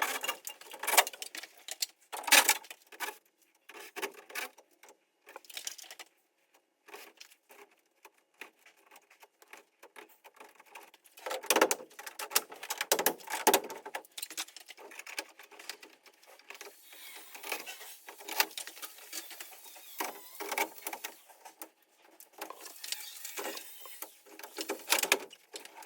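Sped-up handling noise from work on a system air conditioner: rapid, irregular clicks, knocks and clatter of parts and tools.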